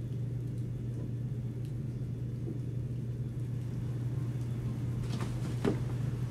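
A steady low hum over a faint rumble. Near the end come a few short knocks and clicks, one louder than the rest.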